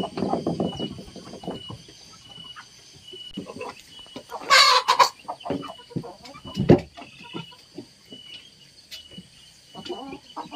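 Domestic chickens clucking while pecking at feed in a metal bowl and on boards, with sharp taps of beaks. About four and a half seconds in comes one loud, harsh half-second burst from the flock. A faint, regular high chirp repeats about twice a second in the background.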